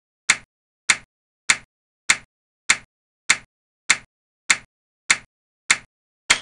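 Short, sharp electronic tick sound effect repeating evenly, a little under two ticks a second. Each tick marks one clock tick of CPU time counted against the running process.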